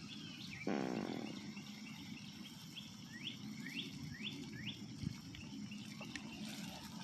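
Wild birds calling: a short harsh call about a second in, then a run of four quick rising chirps midway, over a faint steady outdoor background.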